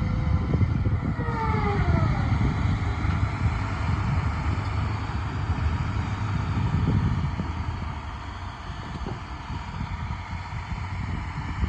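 Liebherr R946 long-reach excavator's diesel engine running steadily with a deep rumble. In the first couple of seconds a whine slides down in pitch, and the machine gets quieter after about eight seconds.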